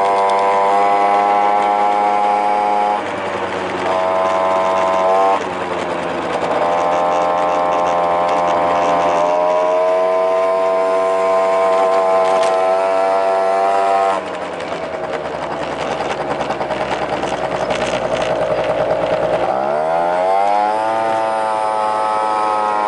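A Honda Tact AF24 scooter's 50cc two-stroke engine running under way, with loud intake noise from an aftermarket air cleaner. The note dips briefly a few times as the throttle eases off, then rises steadily in pitch near the end as the engine picks up speed again.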